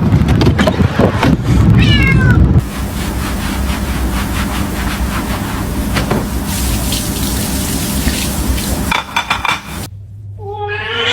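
A cat meowing: a falling call about two seconds in and another near the end, with a long stretch of steady hiss between them.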